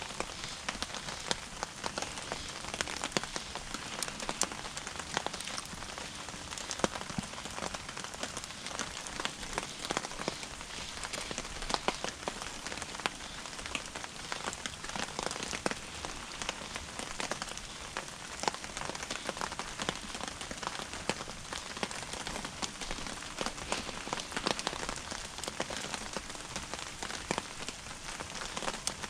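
Wood fire burning in a small steel stove, a steady dense crackle of small pops and snaps.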